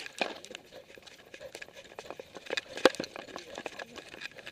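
Irregular quick clicks and taps from a camera strapped to a dog as it moves along pavement, the sharpest tap about three seconds in.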